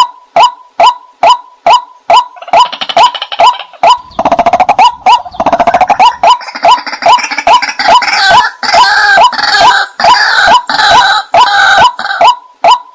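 White-breasted waterhen calls played as a lure: a sharp note repeating steadily about two and a half times a second. From about two seconds in, a louder, rougher run of calls joins over it, then drops away shortly before the end.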